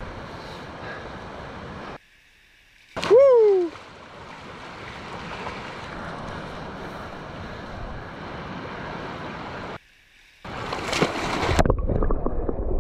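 Rushing river water, with one loud short yelp that falls in pitch about three seconds in. The sound cuts out abruptly twice, and the water comes back louder and closer near the end.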